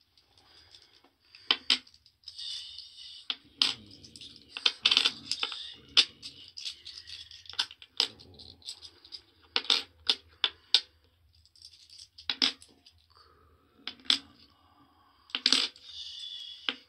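500-yen coins clinking against each other in a hand and being set down one at a time on a wooden tabletop, a run of irregular sharp metallic clinks with a short ringing after each.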